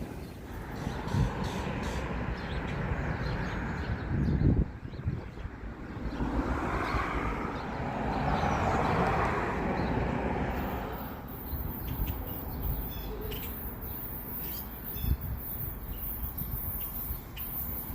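SEPTA Regional Rail commuter train moving through the station, a rumbling noise that swells and fades twice, then a steady high hiss from a little past halfway with a few knocks.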